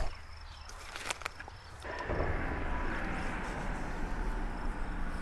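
Rod and reel being handled during a bobber cast from the bank: a few sharp clicks about a second in, then steady rustling from about two seconds in.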